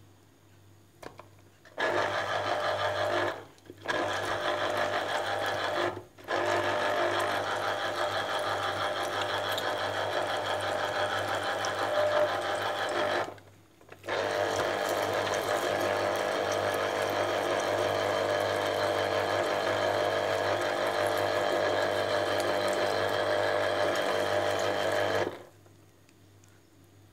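A small electric kitchen appliance motor runs steadily in four stretches, stopping briefly three times and switching off near the end.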